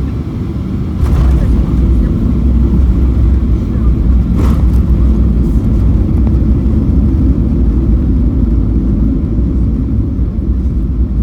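Cabin noise aboard a Boeing 737-800 during landing: a loud, steady low rumble of engines and airflow that steps up in loudness about a second in, with two short clicks.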